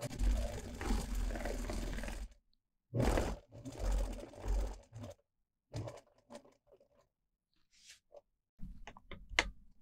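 Vintage electric sewing machine stitching a seam through two layers of quilting cotton. It runs for about two seconds, stops, then runs again in two short bursts, with a low motor hum under the needle. A few light clicks and knocks follow near the end as the fabric is handled and pulled away.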